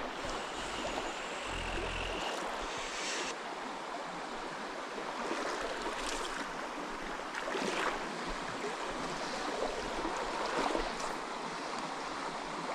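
Shallow stream running steadily over its bed, an even rush of water, with a few brief faint knocks or splashes in the second half.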